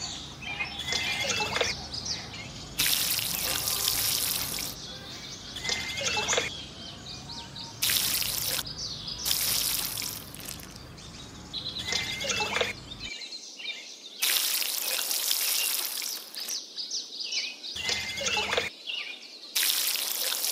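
Water poured from a small ladle splashing into a plastic toy pond, in about four short pours. Between the pours, bird calls that fall in pitch repeat every few seconds.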